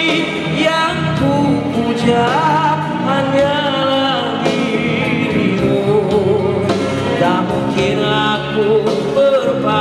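Male vocalist singing a Malay rock ballad live into a microphone over backing music, holding long, wavering notes.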